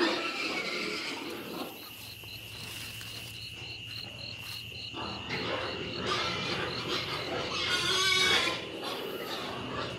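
Night insects trilling steadily, a high continuous tone with a regular chirp about three times a second. From about halfway through there is louder rustling and scraping, loudest about eight seconds in.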